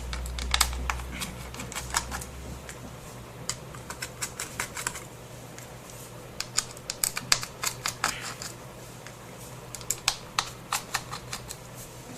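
Irregular small, sharp clicks and taps of a screwdriver and small metal parts, as the screws holding a laptop's SATA hard drive in its bracket are taken out.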